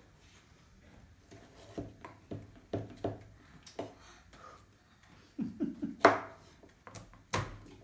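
Kitchen knives knocking on plastic cutting boards as potatoes and a carrot are sliced, in irregular single strokes, the loudest about six seconds in.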